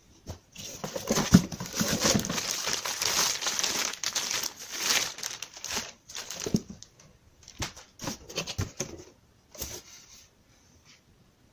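Packaging crinkling and rustling as the contents are lifted out of a cardboard box, with a sharp knock early on. The rustling is continuous for the first half, then comes in short separate bursts.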